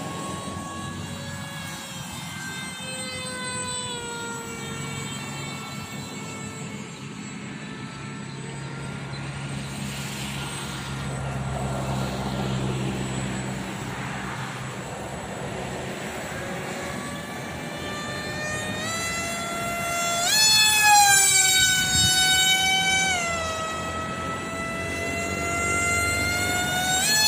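Radio-controlled Su-30 model plane's motor whining as it flies overhead. The whine slides up and down in pitch, and jumps higher and louder about twenty seconds in and again at the end.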